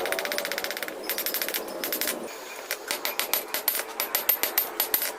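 Steel being hammered at the forge, with metallic ringing strikes. A very fast rattling run of blows comes first, then a short pause and a steadier run of about four blows a second.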